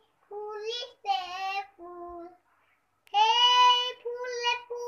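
A little girl singing an Assamese song unaccompanied in a high child's voice. She sings a few short phrases, then a long, loud held note about three seconds in.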